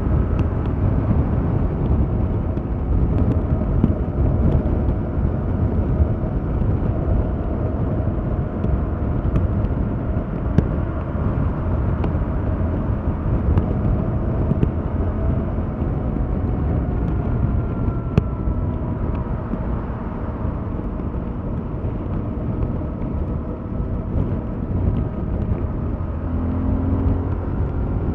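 Stock 2021 Yamaha MT-07's 689 cc parallel-twin engine running steadily while riding along at a cruise. Near the end the pitch rises as it picks up revs.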